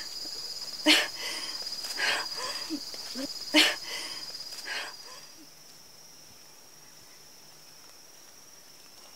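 Insects trilling steadily in a high, fast-pulsing chirr, louder in the first five seconds and fainter after. Four or five short, sharp noises come in the first five seconds, over the insects.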